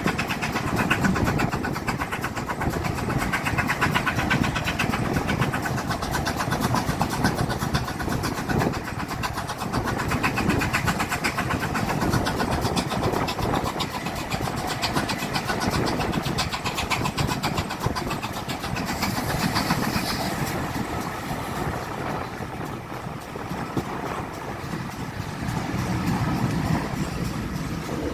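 Steady running noise of a train in motion, an engine-like rumble with a fast, even pulsing and rattle that eases a little past the middle.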